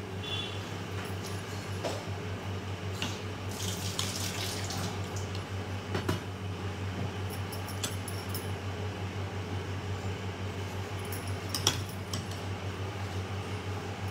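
Light clicks and taps of a spoon against a small ceramic dish as thick raita is spooned in, over a steady background hum, with a brief rushing hiss about four seconds in.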